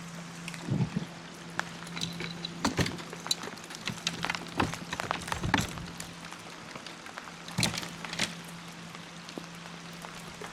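Rain falling on the water and the kayak: a steady hiss with scattered sharp drips and knocks through the middle, alongside a low steady hum.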